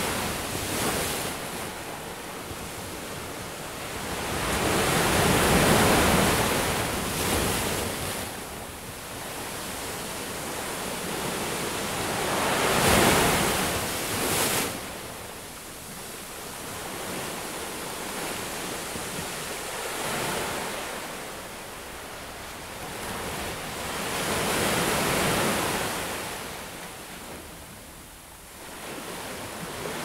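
Ocean surf washing onto a beach: a steady rushing hiss that swells as each wave breaks and fades as it runs back, with a wave about every five to seven seconds.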